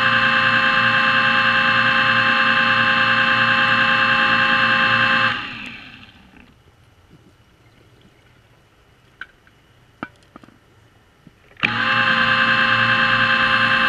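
Underwater scooter (diver propulsion vehicle) motor running with a steady whine of several fixed tones. It cuts out about five seconds in and winds down, leaving a low hiss with a few faint clicks, then starts up again abruptly near the end.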